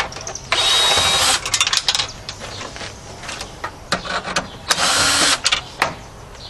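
Cordless drill/driver with a hex bit running in two bursts, backing hex-head screws out of a CRT television's speaker mounts: about a second of motor whine starting half a second in, then a shorter burst near the end, with small clicks between.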